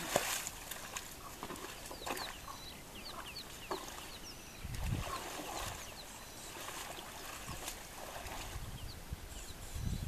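Birds chirping in quick short calls, with a low rumble about five seconds in and again near the end as a Cape buffalo bull moves through a shallow mud wallow.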